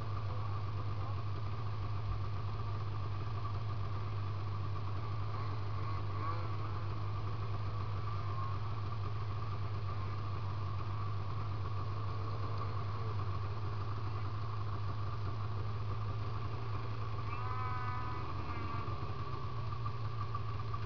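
Two-stroke 800 snowmobile engine with an aftermarket SLP exhaust pipe idling steadily. A short wavering high-pitched sound rises over it about seventeen seconds in.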